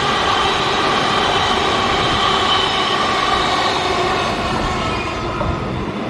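Queensland Rail electric suburban train running past on the rails, with a steady high whine over the wheel and rail noise. The sound fades in the last second or so as the train moves away.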